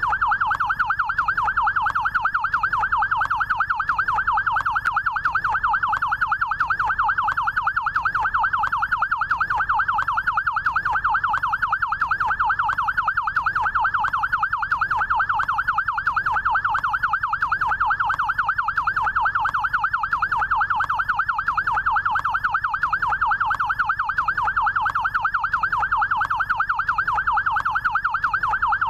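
Electronic yelp siren of a SAMU rescue motorcycle, sounding continuously: a fast, unbroken cycle of rising and falling wails.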